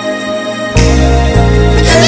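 Instrumental stretch of a slow love song with no vocal: a thin, quieter passage, then the bass and full band come back in louder about three-quarters of a second in.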